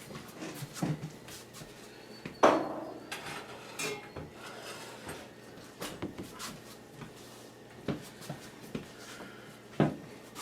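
Kitchen handling noises: dishes and cookware knocking and clattering in scattered clicks, with one louder clank that rings briefly about two and a half seconds in.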